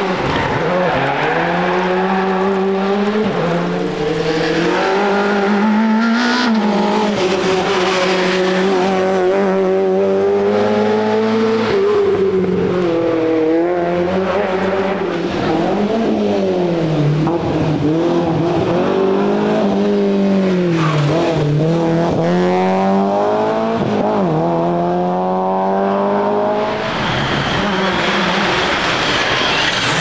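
Rally car engines at full throttle as cars pass, the note climbing and dropping again and again through gear changes and braking for corners. Near the end the engine note gives way to a steady high whine.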